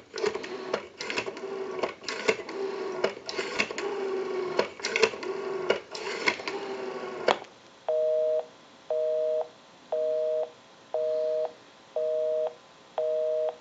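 Western Electric 500 rotary telephone being dialed: the dial tone is broken by bursts of dial-pulse clicks as each digit spins back. After the last digit, about seven seconds in, the dial tone stops, and a busy signal begins: two-tone beeps about once a second, six of them, because the number called is busy.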